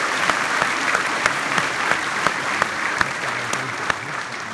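Large audience applauding, a dense patter of many hands clapping that begins to die away near the end.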